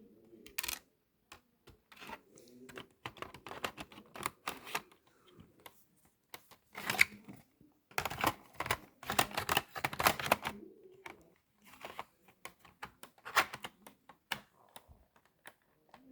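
Irregular runs of clicks and rattles from hard computer parts being handled and fitted, loudest in clusters around the middle and again near the end.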